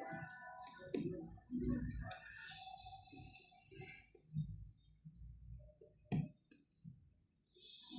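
Scattered sharp clicks and small taps, with faint background music.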